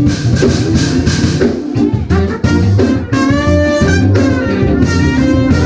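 Live jazz-fusion sextet of keyboards, electric guitar, bass, drums, saxophone and trumpet playing, with a steady bass line and drums under a melody line that wavers in pitch.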